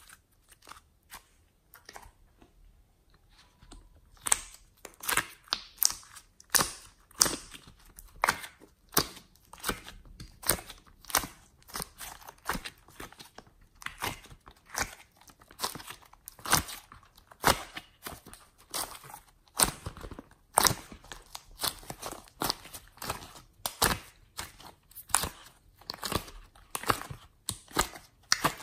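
Slime being stretched, squeezed and kneaded by hand, giving sticky clicks and pops. Only a few faint clicks at first, then from about four seconds in a dense, irregular run of pops, several a second.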